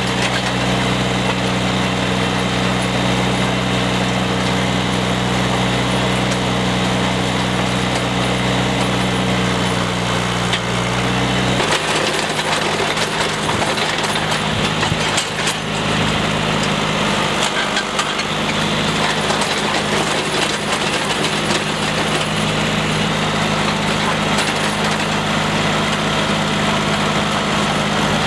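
A small gasoline engine on a power tool running steadily under load, its pitch and tone changing about 12 seconds in.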